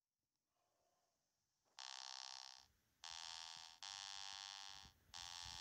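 Intro jingle of held electronic tones: a string of bright synthesized notes, each about a second long with short gaps between them, starting nearly two seconds in after near silence.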